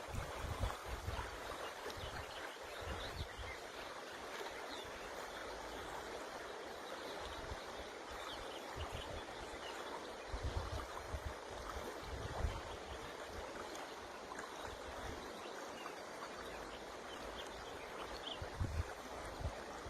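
River water rushing steadily, with faint short bird chirps over it and occasional low gusts of wind buffeting the microphone.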